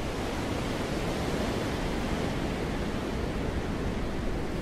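Wind blowing steadily: a dense, even rushing sound with no gusts or breaks.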